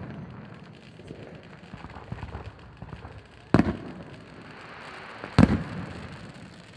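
Aerial fireworks display: two loud bangs of bursting shells, the first about three and a half seconds in and the second under two seconds later, with fainter popping and crackling between them.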